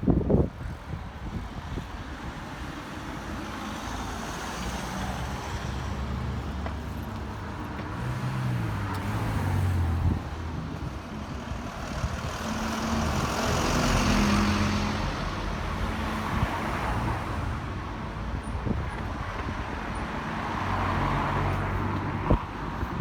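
Road traffic going by: the engines and tyre noise of passing vehicles, swelling as one passes close in the middle. A sharp knock sounds at the very start and again near the end.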